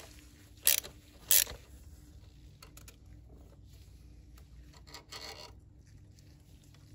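Hand ratchet turning a 10 mm deep-well socket in two short ratcheting strokes about a second in, unscrewing a diesel glow plug. A fainter scrape comes about five seconds in as the tool is drawn out of the glow plug bore.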